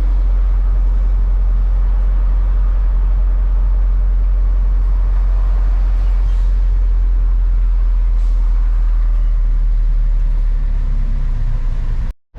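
Small Mercedes-Benz truck driving, its engine and the road making a steady low rumble inside the cab.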